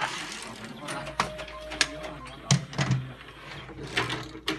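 Fireworks fuse-inserting machine at work: irregular sharp clicks and knocks, with a brief steady tone about a second in.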